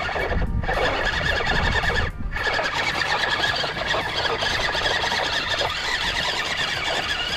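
Electric motor and gear train of a 1:12 scale RC crawler truck (LDRC LD-P06 Unimog) whining under heavy load as it is driven hard up a rocky climb, the throttle easing off briefly about half a second and two seconds in.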